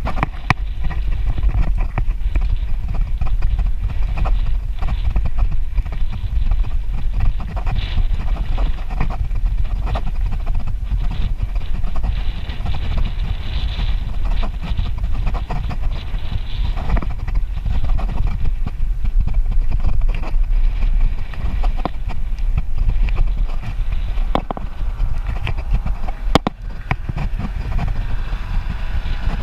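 Wind buffeting the microphone as a bicycle is ridden along a paved road, a steady low rumble, with the bike rattling and clicking over the asphalt.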